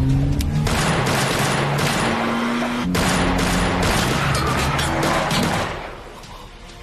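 Rapid gunfire, a film fusillade of many shots in quick succession, over an action music score. It breaks off briefly about three seconds in and stops about five and a half seconds in, leaving the music.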